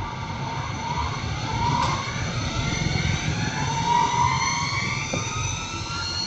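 CNC router at work cutting wood: a whine from its motors rises in pitch again and again over a low rumble.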